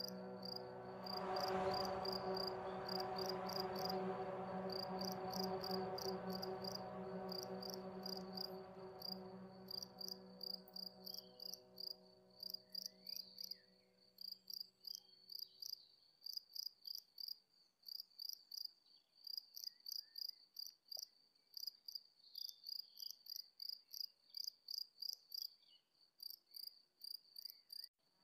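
Crickets chirping steadily in regular high-pitched pulses, about two chirps a second. A low sustained drone with overtones sounds under them and fades out around halfway through.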